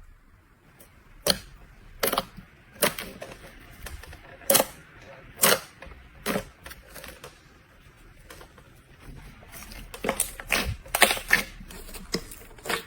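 Slime being pressed and worked by hand, giving sharp, crisp clicks and pops. They come about one a second at first, then in a quicker cluster near the end.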